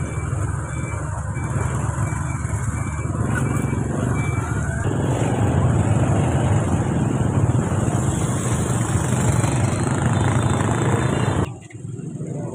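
Motorbike engines running close by in a busy outdoor market, louder for several seconds in the middle as one passes right beside. The sound drops off abruptly near the end.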